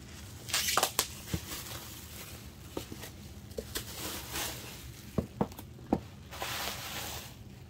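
Plastic bubble wrap rustling and crinkling in bursts as a cardboard box is slid out of it, with a few sharp clicks and taps in between.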